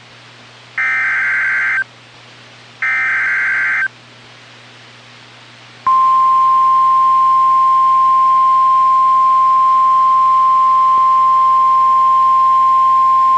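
Two bursts of an Emergency Alert System SAME header, buzzy digital data screeches about a second long and a second apart. About two seconds later the NOAA Weather Radio 1050 Hz warning alarm starts, one loud steady tone that holds to the end, marking the start of a flash flood warning.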